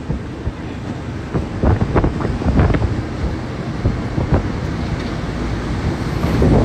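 Wind buffeting the microphone on a moving open tuk-tuk, over its engine and road rumble. A few short knocks or rattles come about two seconds in and again later.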